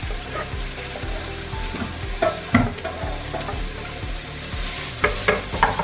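Chopped onions sizzling as they fry in vegetable oil in a pot, stirred with a utensil that scrapes against the pot in short strokes, a few about two and a half seconds in and several near the end.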